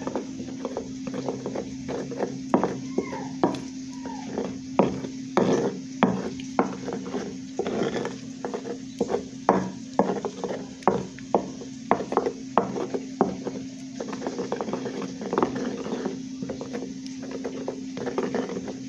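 Stone pestle (tejolote) grinding roasted tomatoes and serrano chiles into salsa in a volcanic-stone molcajete: irregular knocks and scrapes of stone on stone through the wet pulp, about two strokes a second, over a steady low hum.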